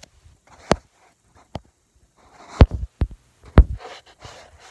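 Handling noise from a phone held close to its microphone: several sharp knocks and thuds, the loudest about two and a half and three and a half seconds in, with brief rubbing between them.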